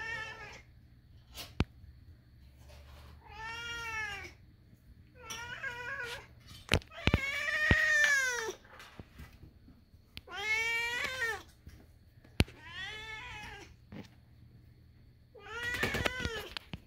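Kitten meowing loudly and insistently, about seven long meows every couple of seconds, each rising and then falling in pitch. A few sharp clicks fall between the meows.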